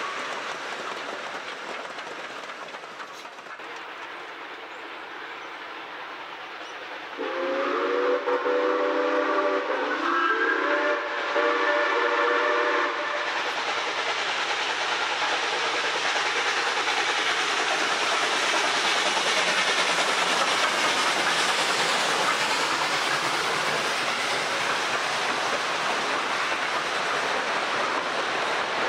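Steam locomotive whistle sounding two long blasts about seven seconds in, a chord of several tones. Then a steam-hauled train's carriages roll close past on the rails, a steady, loud rumble.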